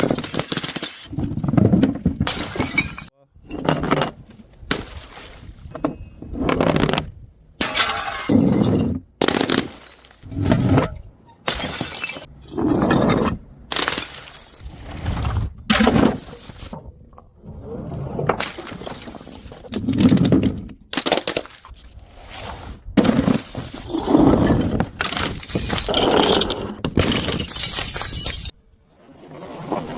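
Glass smashing and objects breaking, one short crash after another, about every one to two seconds, each cut off abruptly before the next.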